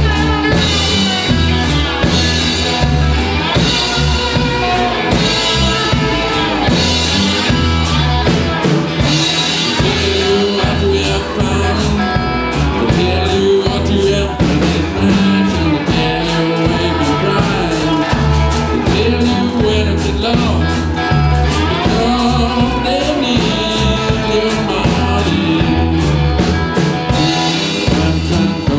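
Live blues-rock band playing: electric cigar box guitars over a drum kit keeping a steady beat.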